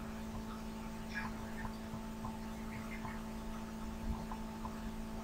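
Steady low electrical hum with faint hiss, with a few faint soft sounds over it.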